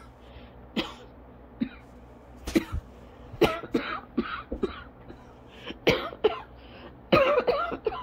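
A person coughing uncontrollably during an asthma coughing fit. Short single coughs come first, then clusters of coughs, and a longer, loudest run about seven seconds in.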